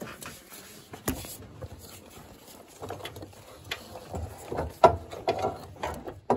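Scattered clicks, knocks and scrapes as a new engine mount is worked back into its bracket by a gloved hand, with a sharp click about a second in and a cluster of knocks later, the loudest near five seconds.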